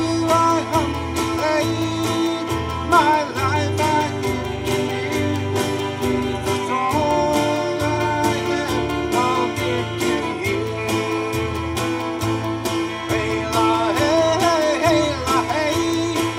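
Live country-gospel song: a man sings phrases into a microphone over a strummed acoustic guitar, with a low bass line moving under it.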